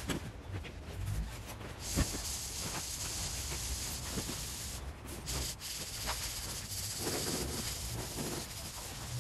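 Large polystyrene foam pieces being handled, with rubbing and scraping against a steady hiss. A single knock comes about two seconds in.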